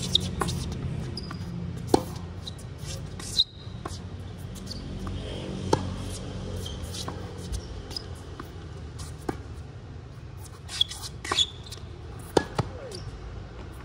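Tennis ball struck by rackets and bouncing on a hard court during a rally: sharp pops every second or two, the loudest near the end, over a steady low rumble.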